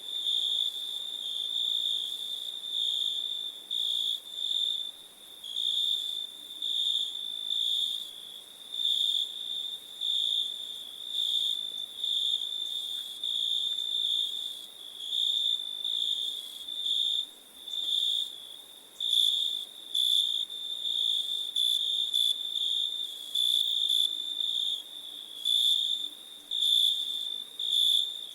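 Crickets chirping: a steady, high-pitched trill that swells and dips in pulses about once a second.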